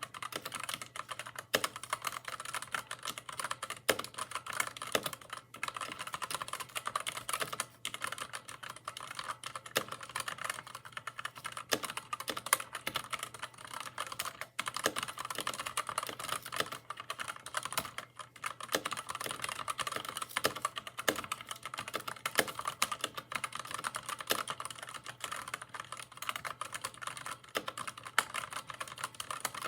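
Mechanical keyboard with red linear switches being typed on continuously, a fast, dense clatter of keystrokes with an occasional louder key strike.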